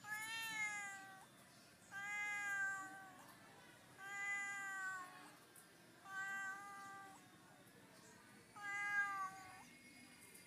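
Domestic cat meowing repeatedly: five drawn-out meows about two seconds apart, each lasting about a second.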